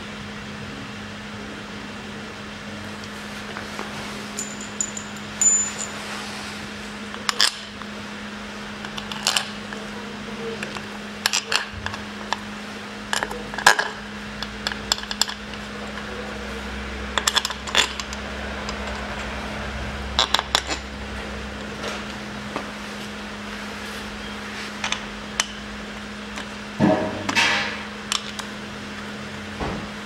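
Steel bolts clinking and clicking as they are picked up and set by hand into the bolt holes of a manual gearbox's rear cover: a scatter of short, sharp metallic ticks, some in quick little clusters, over a steady low background hum.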